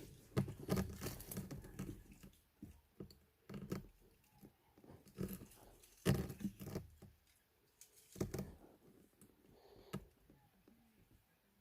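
Irregular rustling and crunching of dry leaves and brush, in uneven bursts with a few close thumps, dying down near the end.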